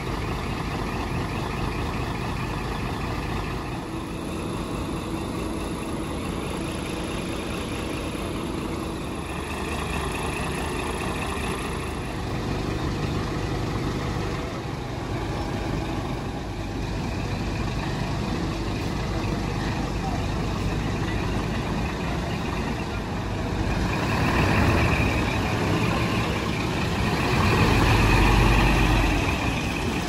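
Diesel engines of fire trucks idling steadily, with the engine noise swelling twice near the end.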